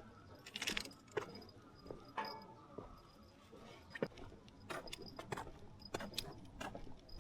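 Faint scattered clicks and rustles of small handling noises, with insects chirping faintly in the background.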